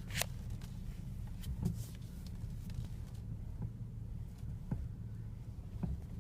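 Steering clunk on a BMW E60 as the steering wheel is turned: about five short, dull knocks, irregularly spaced one to two seconds apart, over a steady low hum. The cause of the clunk is unknown to the owner.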